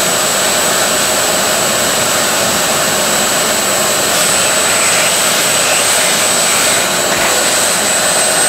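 Shop vacuum running steadily with a high whine as its hose nozzle is drawn across a tile floor, sucking up debris.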